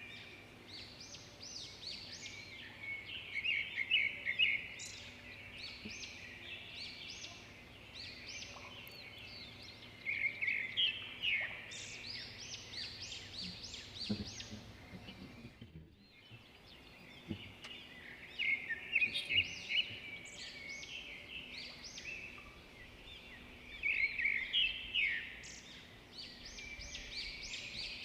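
Birds chirping: dense bursts of quick, high twittering notes that swell and fade every few seconds, with a brief break about midway.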